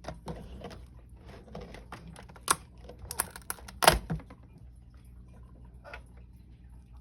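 Irregular clicks and snaps of 3D-printed PLA support material being broken off and peeled from the print by hand. The loudest cracks come in a cluster about three to four seconds in, then sparser clicks.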